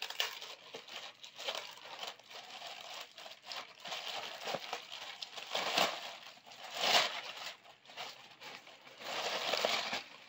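Thin clear plastic bag crinkling and rustling as a plush toy is worked out of it, louder about seven seconds in and again near the end.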